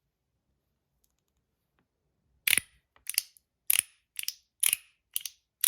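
Mackie CP3 magnetic fidget being snapped shut over and over: after a silent start, about seven sharp clicks come at roughly two a second. Tape on the fidget makes the clicks a lot quieter.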